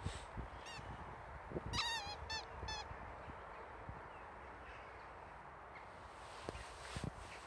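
A dog's rubber squeaky toy squeaking as a boxer chews on it: one faint squeak, then a quick run of about four squeaks around two seconds in.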